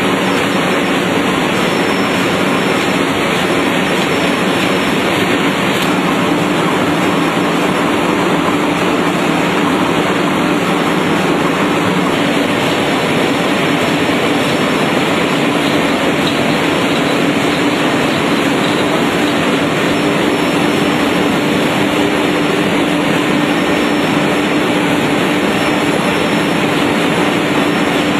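Adult diaper making machine running continuously: a loud, even mechanical noise, with a steady low hum that comes in about six seconds in.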